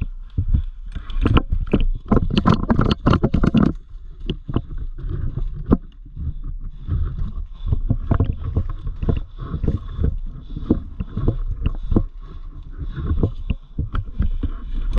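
Airsoft guns firing in irregular clicks and cracks, mixed with knocks and rustle from the player's gear, over a steady low rumble. The clicks come thickest for the first few seconds.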